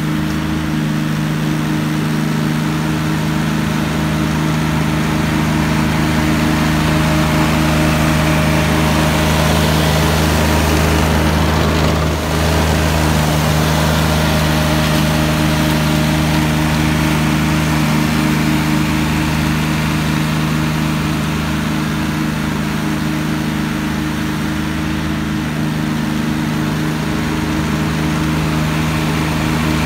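McConnel Robocut tracked flail mower running steadily under load as its flail head cuts dry grass and scrub. The engine and flail make an even hum of several steady tones. It grows a little louder as the machine passes close by and dips briefly about twelve seconds in.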